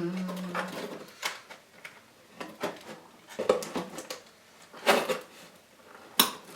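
Unboxing handling noise: irregular clicks, knocks and rustles of a cardboard box and its packaging being moved about, with the louder knocks about 3.5, 5 and 6 seconds in.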